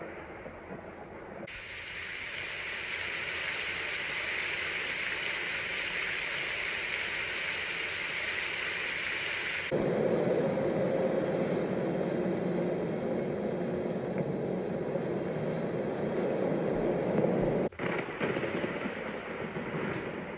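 A run of edited, steady noise clips. A bright hiss lasts about eight seconds, then cuts sharply to a lower, fuller rushing noise, which drops out for a moment near the end before carrying on.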